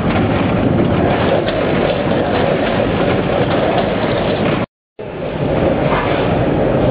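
Steady mechanical clatter of a multi-head combination weigher running, weighing potato chips. The sound drops out to silence for a moment near five seconds in.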